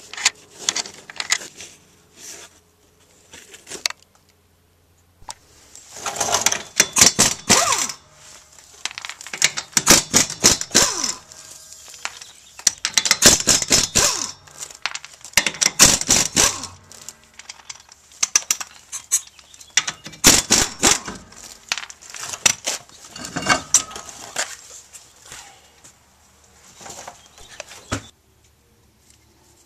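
Repeated bursts of light metallic clicking and rattling as lug nuts are spun off a car's steel wheel studs by hand, with quiet gaps between them.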